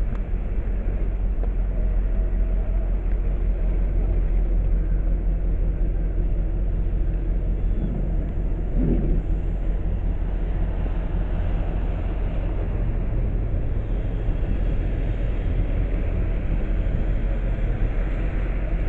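Steady low outdoor rumble of street ambience, with a brief faint pitched sound about eight seconds in.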